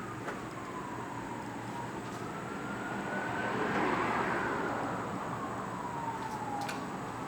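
Emergency-vehicle siren wailing, sliding slowly up and down in pitch, over traffic noise that swells about four seconds in as a vehicle goes by.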